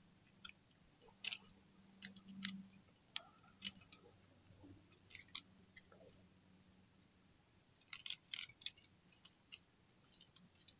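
Scattered light clicks and taps of clutch springs and spring bolts being handled and set into the clutch pressure plate, with a quick run of clicks about eight seconds in. A faint steady low hum sits underneath.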